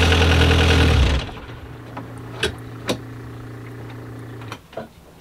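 Universal M30 inboard marine diesel running, heard from inside the boat's cabin, then cut off about a second in. A quieter steady hum with a couple of faint clicks carries on for about three more seconds before stopping.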